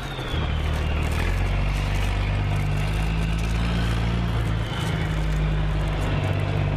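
A truck engine running steadily, a low even hum that shifts slightly a little past the middle.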